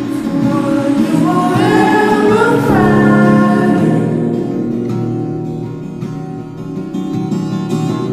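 Background music: a sung vocal line over soft instruments, giving way after about four seconds to quieter plucked notes.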